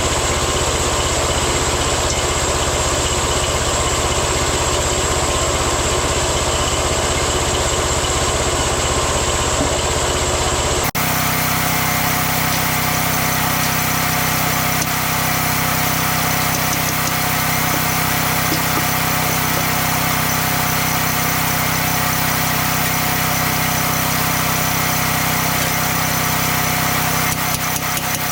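Engine of a homemade band sawmill running steadily, the sound changing abruptly about eleven seconds in.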